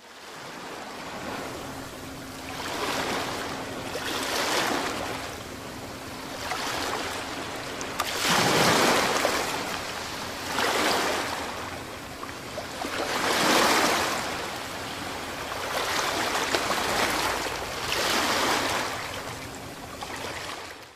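Water waves washing in, a rushing wash that swells and fades about every two seconds, loudest around nine and thirteen seconds in.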